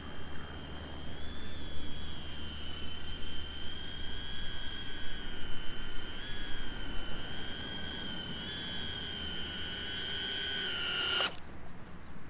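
Brushless motors and propellers of a 2-inch micro FPV quadcopter whining in flight, a high several-pitched tone that wavers with the throttle, cutting off abruptly about eleven seconds in.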